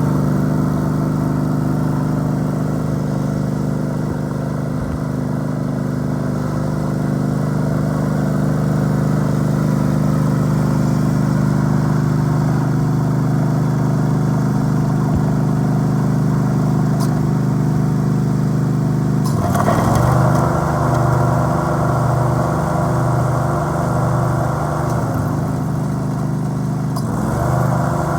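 Gas engine of a Deutz 1613 riding lawn mower running steadily. About two-thirds of the way in, and again near the end, its note changes and gets busier.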